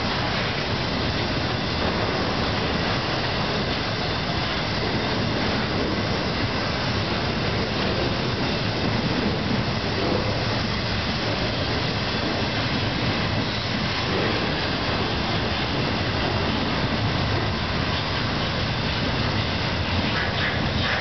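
Cars of a long CSX intermodal freight train rolling past: a steady rumble and rattle of steel wheels on rail.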